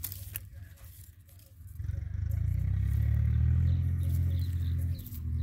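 A vehicle engine running steadily, a low hum that swells up about two seconds in and then holds. A sharp click at the very start.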